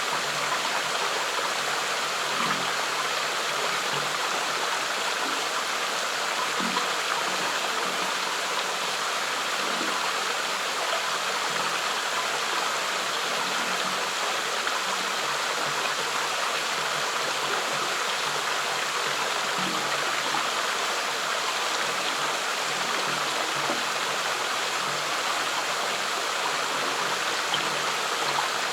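Flowing stream water rushing steadily and evenly.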